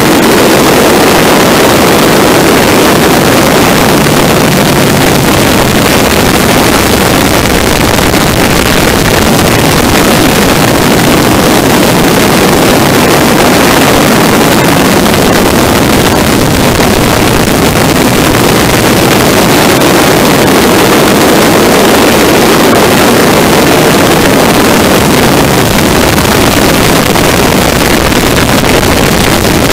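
De Havilland Tiger Moth biplane in flight through aerobatic manoeuvres: its four-cylinder inline engine running under a loud, steady rush of wind over the microphone.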